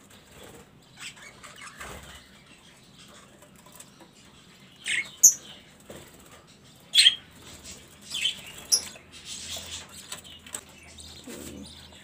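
Budgerigars in a wire-mesh aviary fluttering their wings, with about five short, high chirps that fall in pitch around the middle.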